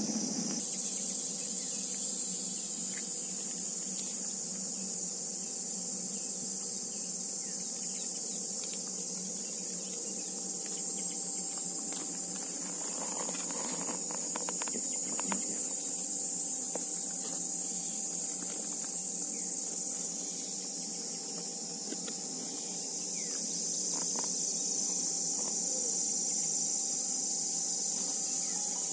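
A steady, high-pitched chorus of insects shrilling without a break, setting in about half a second in, with a few faint clicks near the middle.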